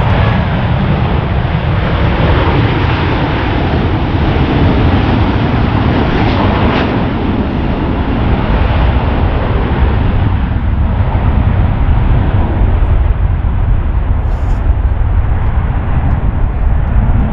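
Swiss Airbus A330-300's Rolls-Royce Trent 700 jet engines at take-off thrust during the take-off roll and lift-off, a loud, steady rumble.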